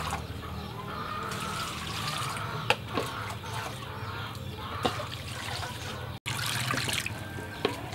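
Water scooped from a clay jar with a plastic dipper and poured, trickling and splashing, with a few sharp knocks of the dipper. It grows louder and splashier near the end.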